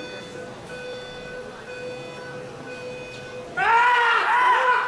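Track-cycling start-gate countdown timer beeping about once a second over a steady tone. About three and a half seconds in, loud rhythmic shouts start, about two a second, as the team sprint riders leave the gate.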